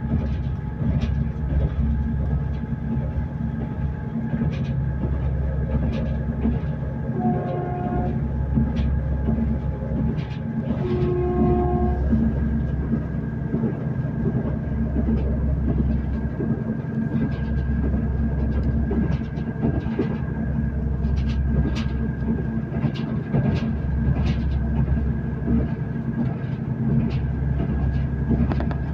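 Diesel passenger train running at speed, heard from inside the carriage: a steady low rumble with a faint whine and scattered clicks of the wheels over rail joints. The train's horn sounds briefly twice, about seven and eleven seconds in.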